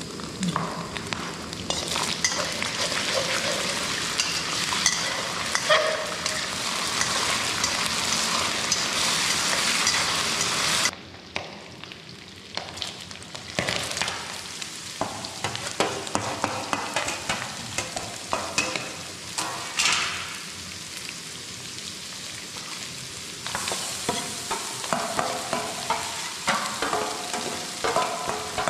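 Meat stir-frying with sauce in a pot: steady sizzling, with a spatula scraping and clinking against the metal. About eleven seconds in, the sizzle drops off suddenly, leaving quieter stirring and scraping.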